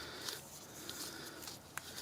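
Quiet handling noise with a few light clicks, the clearest near the end, from working a new stabilizer link bar by hand while greasing it.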